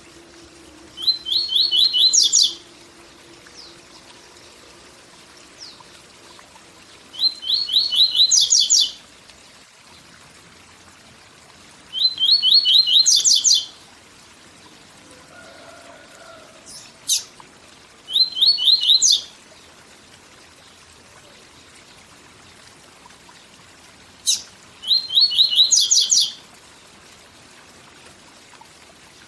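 Papa-capim seedeater singing its 'tui tui zel zel' song: five short phrases of rapid repeated notes, each a second or two long, with pauses of several seconds between them. A steady waterfall rush runs underneath.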